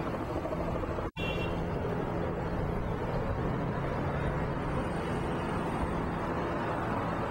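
Steady vehicle noise: an even rush with a low steady hum, cut off completely for an instant about a second in.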